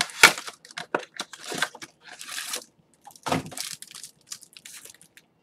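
Rustling and crinkling handling noise with scattered sharp clicks, in several short bursts.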